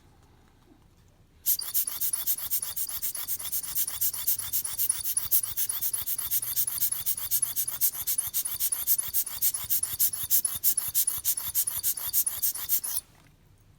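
A watch main plate being worked over in cleaning: a fast, even train of hissing, rasping strokes, about six or seven a second, that starts about a second and a half in and stops sharply near the end.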